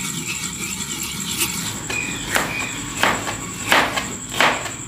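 Soaked poppy seeds being ground with a little water in a dori mortar: about four short pestle strokes, roughly one every 0.7 s, in the second half.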